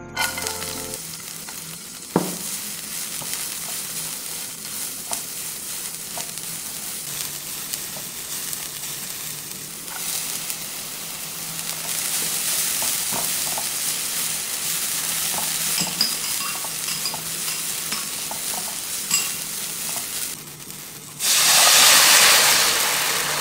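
Garlic, scallion and chili sizzling in hot oil in a nonstick pan, stirred with a silicone spatula, with small ticks from the stirring; the sizzle grows louder about halfway through once dried shrimp are in. Near the end a loud burst of sizzling as sauce is poured into the hot pan.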